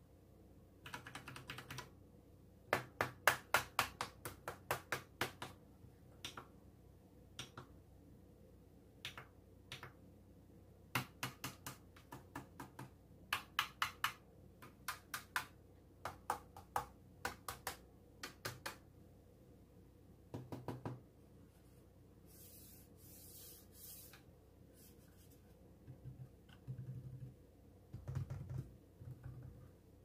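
Logitech G Pro tenkeyless mechanical keyboard with Romer-G tactile switches being typed on in quick runs of keystrokes separated by short pauses, with a few duller, heavier presses about two-thirds of the way in and near the end. The keystrokes carry a slight "ping" from the board.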